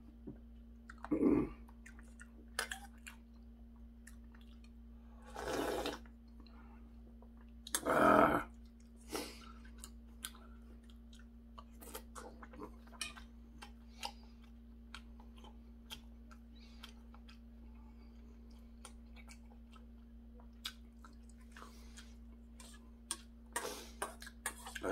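Eating sounds from a man spooning soup out of a stainless steel bowl: chewing with small scattered clicks and clinks, and a few louder slurps, the loudest about eight seconds in. A steady low hum runs underneath.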